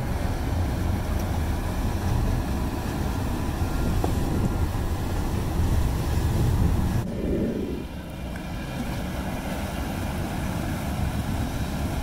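Four Yamaha outboard engines running as the boat is manoeuvred, a steady low rumble with water churning and wind noise on the microphone. About seven seconds in, the sound abruptly thins and drops a little in level.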